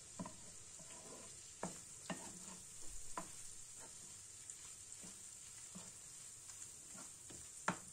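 Prawns frying with a faint sizzle in a non-stick frying pan while a wooden spatula stirs them, scraping and tapping the pan now and then, with one sharper knock near the end.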